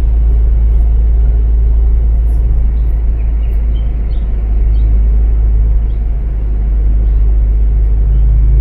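Steady low road rumble inside a moving car's cabin, with a few faint bird chirps about halfway through.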